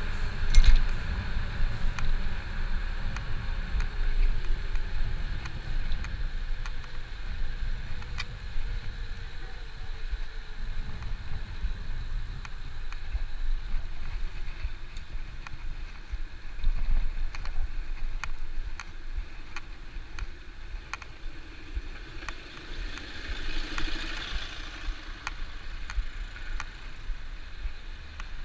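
Wind rumbling on the microphone and road noise from riding along on a bicycle, with scattered small clicks and knocks and a swell of hiss a little before the end.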